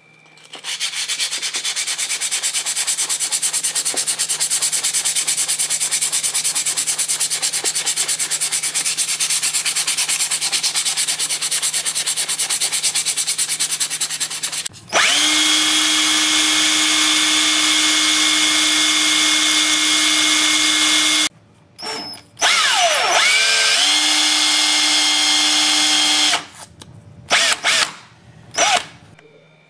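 Hand sanding of an old drill's metal housing, a steady rubbing. Then a Hitachi cordless drill spins the drill's armature in its chuck: it runs with a steady whine, stops about two-thirds in, winds down and up again, runs once more, and ends with a few short bursts.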